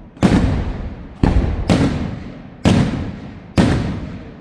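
Fireworks shells bursting: five loud bangs in about three and a half seconds, two of them close together in the middle, each followed by a rumbling echo that dies away.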